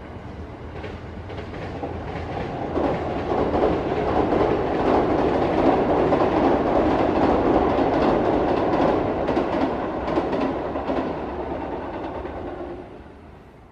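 Freight train hauled by an electric locomotive passing, its wagon wheels clattering over the rail joints. It builds up, stays loud for several seconds, then fades away shortly before the end.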